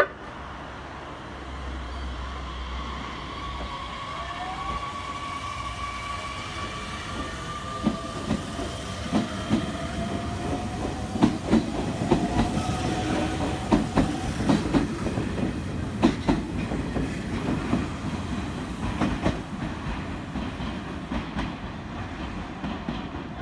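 A Nishitetsu 7000-series electric train pulls away: its traction motors give a whine that rises in pitch as it gains speed. From about a third of the way in, its wheels clatter over the rail joints and points in a run of sharp clicks, which fade as the train moves off.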